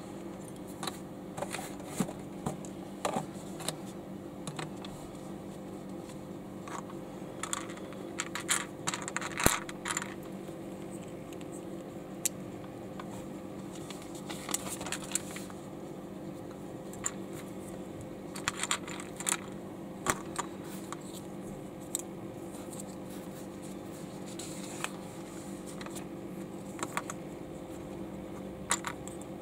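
Small plastic LEGO bricks clicking and clattering as they are picked through and handled, in scattered bursts of sharp clicks, over a steady low hum.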